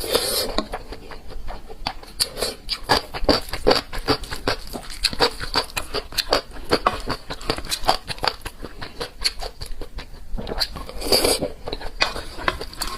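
Close-miked chewing with many quick wet mouth clicks and smacks, and two brief louder rustling bursts, one at the start and one about eleven seconds in.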